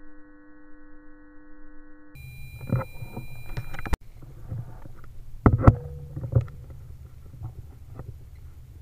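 A steady hum of several tones cuts off about two seconds in. Then comes a low rumble of handling noise from a scope-mounted camera on an air rifle, with scattered sharp clicks and knocks; the loudest is a pair about five and a half seconds in.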